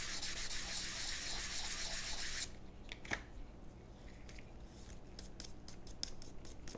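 320-grit sandpaper on a sanding block rubbing back and forth across the bottom of wooden revolver grip panels, a steady rasping that stops abruptly about two and a half seconds in. The panels are being trued flat so they meet flush. A few faint clicks follow.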